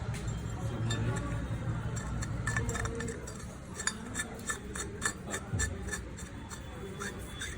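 Light metallic clinking and tapping, a quick irregular run of sharp clicks through the second half, over a low steady hum: metal parts and tools knocking together during repair work on a jet pump motor.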